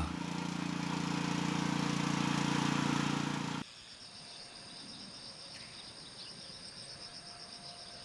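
Small tracked orchard carrier's engine running steadily for about three and a half seconds, then cut off abruptly. After that, crickets and other insects keep up a quieter, steady high trill.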